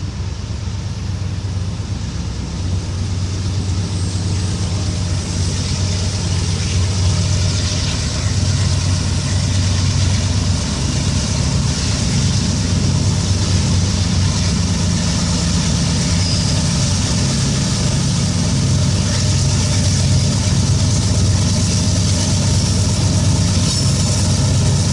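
A pair of GE AC4400CW diesel-electric locomotives, each with a 16-cylinder GE 7FDL diesel, running as they approach; a steady low engine drone that grows gradually louder as they come closer.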